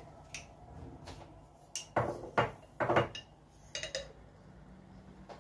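Kitchen clatter: a few separate knocks and clinks of dishes and utensils being handled on the counter, the loudest cluster about two to three seconds in.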